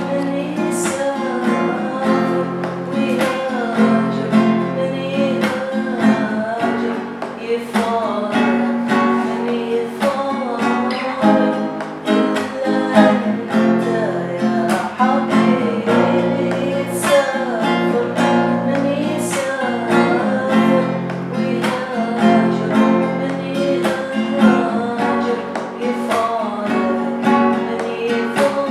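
Music: a strummed acoustic guitar playing a song, with regular strokes over held chords and a wavering melody line above.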